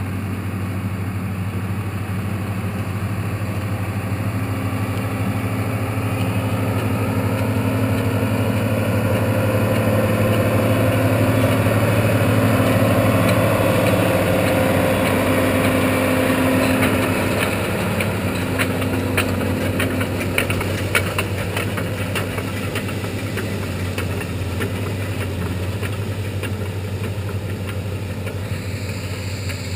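Farm tractor's diesel engine running steadily, a low even hum that swells a little toward the middle. A run of sharp clicks or rattles comes about two-thirds of the way through.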